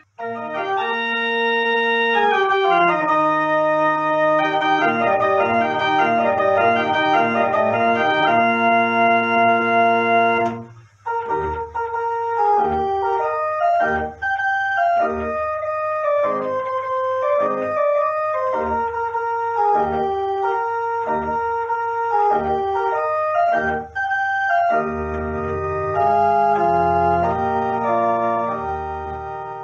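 Organ music playing held chords. After a brief break about a third of the way in, a passage with a pulsing bass line follows, then held chords return after another short break near the end.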